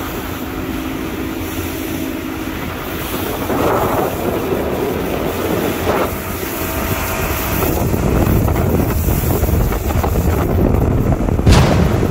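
A motorboat running at speed, with its motor's drone buried under heavy wind noise on the microphone and rushing water. A single loud thump comes near the end.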